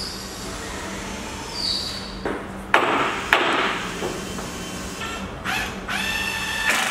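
A few sharp knocks from clamp work on wooden hull planking about two to three seconds in, then a cordless drill whirring in two short runs near the end, over a steady low hum.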